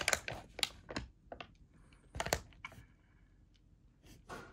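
Plastic bag of frozen meatballs crinkling and crackling as it is handled, in short clusters of clicks, mostly in the first second and again about two seconds in.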